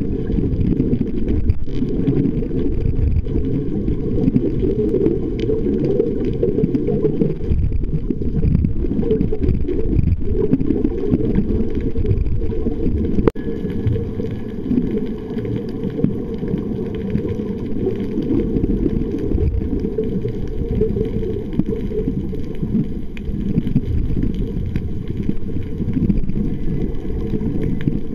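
Muffled low rumble of water picked up through an underwater camera housing, a steady, pitchless wash of sound, with a single sharp click about halfway through.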